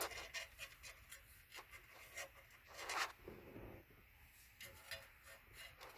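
Faint small clicks and scrapes of hands and a tool working a screw under a car's dashboard, with a short louder rustle about three seconds in.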